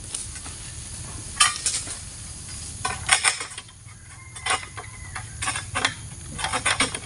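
Long-pole oil palm harvesting sickle (egrek) working at a palm's frond and bunch stalks, heard as irregular clusters of sharp crackling clicks and snaps over a low rumble.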